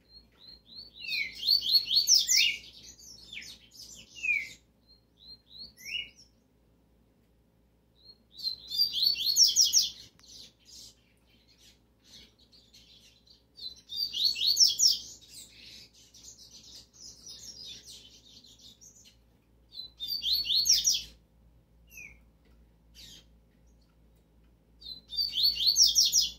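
Caged yellow-bellied seedeater (coleiro baiano) singing: five bursts of fast, high twittering song a few seconds apart, with single short chirps in between.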